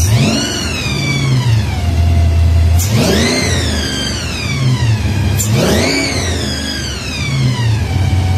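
Engine fitted with twin stacked Roots-type superchargers, revved three times, about three seconds apart. Each throttle blip shoots up sharply, then the revs and the blower whine fall slowly back to a steady idle.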